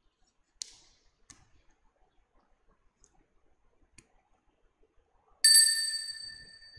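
A few faint clicks, then a small altar bell struck once about five seconds in, ringing bright and fading away over about a second and a half. At Mass it marks the priest's communion from the chalice.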